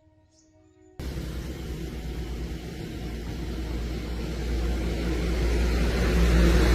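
A heavy diesel vehicle engine running with a low, steady rumble. It cuts in suddenly about a second in and grows gradually louder.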